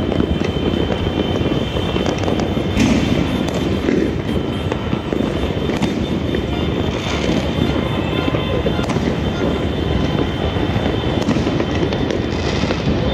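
Many fireworks and firecrackers going off at once, a continuous crackle and popping with louder bangs every two or three seconds.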